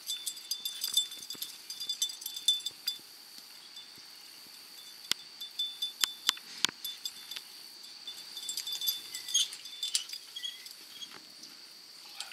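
Steady high-pitched insect chirring, with scattered sharp clicks and leaf rustling as a dog noses through cherry tomato plants.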